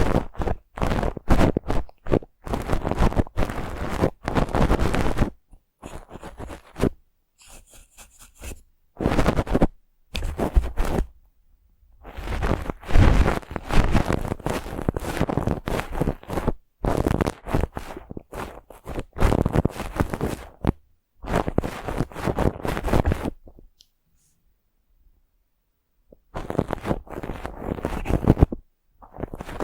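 Stiff brush bristles scraped over the microphone in quick, irregular strokes with short pauses between them. There is a softer, thinner run of strokes about a quarter of the way in and a pause of about two seconds near the end.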